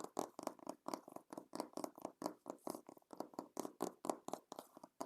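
Fingers tapping and scratching on a book in quick, even strokes, about five a second.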